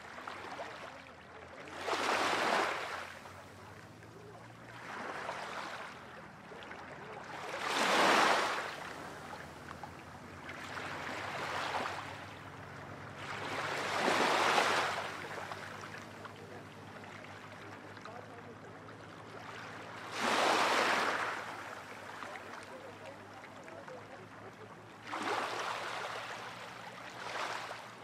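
Small sea waves washing onto the shore, each one a swell of rushing hiss that rises and falls. They come every few seconds, with a longer lull in the middle.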